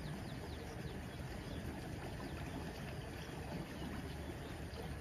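Steady rushing of flowing canal water, with a few faint short high chirps now and then.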